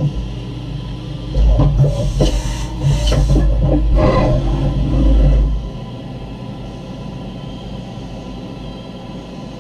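Okuma M560-V CNC vertical mill cutting a 7075 aluminium puck, with chips spraying against the enclosure. It is loud and harsh for the first half, then drops to a quieter steady run.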